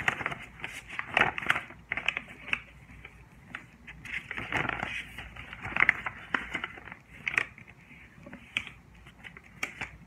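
A sheet of origami paper being folded and creased by hand, rustling and crinkling in irregular bursts with short sharp crackles.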